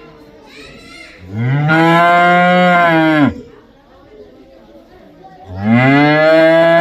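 A cow mooing twice: two long moos of about two seconds each, each rising at the start, held steady and dropping off at the end, with the second running on past the end.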